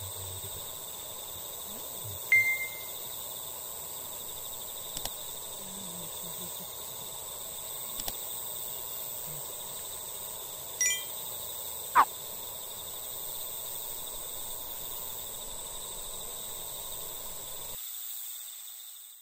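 Dusk lakeside ambience: a steady insect chorus of even, high trilling tones. A few short chirps come about two, eleven and twelve seconds in, the last the loudest, along with the odd faint click.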